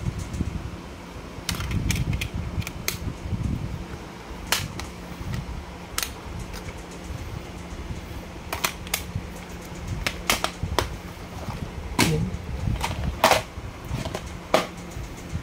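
Plastic DVD cases being handled, with about a dozen irregular sharp clicks and taps of the plastic over a steady low rumble.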